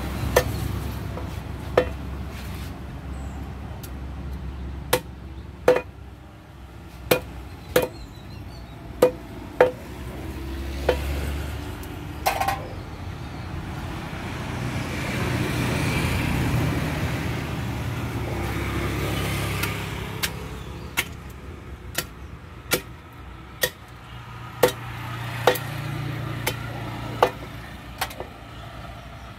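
A heavy knife chopping through a walking catfish into a wooden log chopping block: a couple of dozen sharp chops at irregular intervals. A vehicle rumbles past in the background, swelling in the middle and again near the end.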